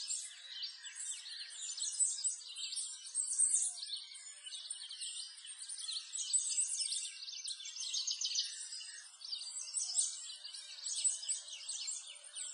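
A dense chorus of many small birds chirping and twittering together, a continuous high-pitched stream of short calls.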